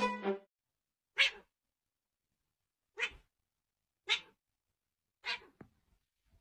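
A domestic cat making four short vocal sounds, one to two seconds apart.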